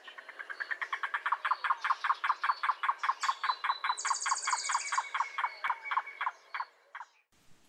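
Yellow-billed cuckoo calling: a long rapid run of notes, about seven a second, slowing to a few spaced notes near the end. A high trill from another bird overlaps about four seconds in.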